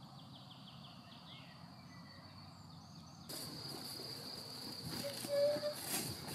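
Crickets chirring steadily in a meadow. About halfway through, a louder rustling swish joins in.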